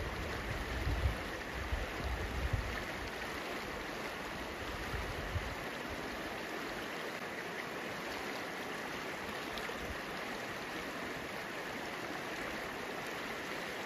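River water rushing steadily. Wind rumbles on the microphone over the first five seconds or so, then fades.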